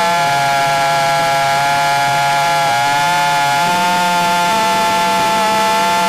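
Motors and propellers of a Krakatoa 5 FPV quadcopter whining steadily in flight, the pitch stepping a little as the throttle changes.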